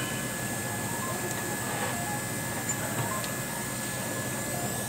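Steady background hum with a thin high tone, and a few faint light clicks of metal as the rear brake caliper's pads and clip spring are handled.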